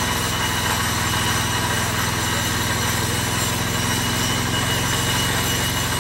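An engine running steadily at idle: a low, even drone with a fast regular throb that does not change.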